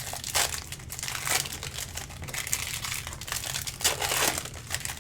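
Football trading cards and their foil pack wrappers being handled and flipped over by hand, with irregular crinkling and rustling and a few sharper crackles.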